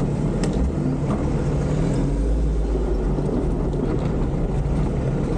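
Toyota 4x4 driving off-road: a steady, loud low engine and drivetrain rumble with a few short knocks and rattles.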